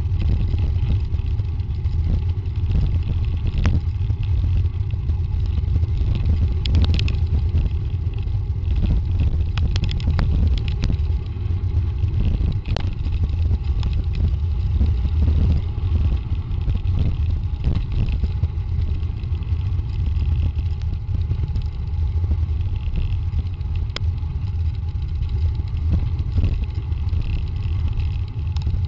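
Mountain bike rolling down a dirt trail, heard through the rider's camera: a steady rumble of wind and trail vibration on the microphone, with scattered clicks and rattles from the bike over the bumps.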